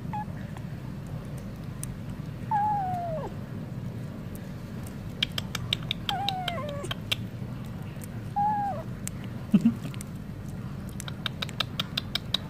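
Cat meowing three times, a few seconds apart, each meow short and falling in pitch, while a kitten licks and chews creamy cat treat from a tube with quick runs of wet smacking clicks. A low steady hum runs underneath.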